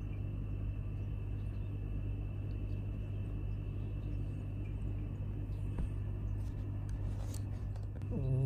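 Sleeping Munchkin cat snoring: a steady low rumble, with a louder, wavering pitched snore near the end.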